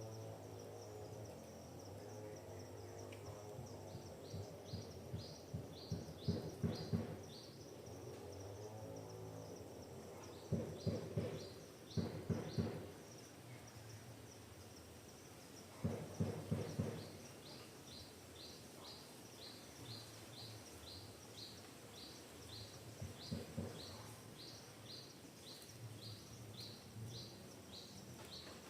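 Forest ambience: a bird chirps a high note over and over, about twice a second, over a steady low background. Several louder, lower-pitched bursts of sound come and go.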